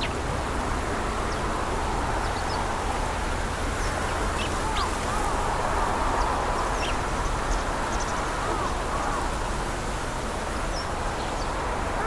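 Birds calling: short arched calls repeated in little runs of two or three, with brief high chirps scattered between them, over a steady rushing background noise.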